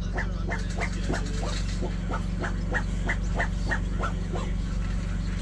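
Dog making short, repeated whining grunts, about three a second, over a steady low hum.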